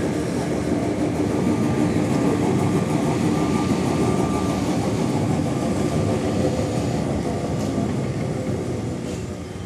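Vintage two-car tram rolling past at close range: a steady running noise of steel wheels on the rails and the running gear, easing off slightly near the end as the cars go by.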